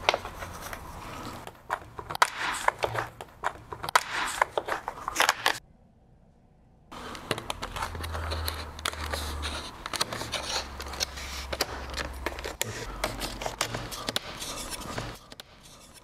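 Handwork in a window jamb: a plastic pry tool and a wooden stop clicking and scraping against the jamb liner in quick irregular bursts, broken by about a second of silence near the middle.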